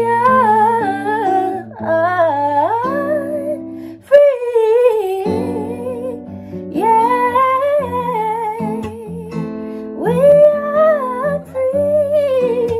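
A young woman sings a slow original song with instrumental accompaniment. She sings the last word of a line about two seconds in, then carries on with wordless vocalizing in long, wavering notes with vibrato. Steady held notes from the accompaniment sit beneath her voice.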